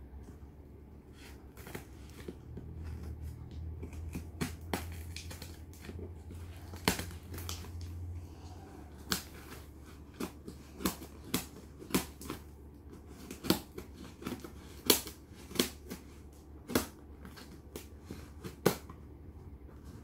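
Scissors snipping through packing tape on a cardboard box: sharp single snips at irregular intervals, about one every second or two, mostly in the second half.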